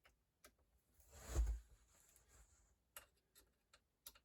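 Small metal clicks and taps from an old hand plane's parts being handled and fitted, with a short louder scrape and bump about a second and a half in.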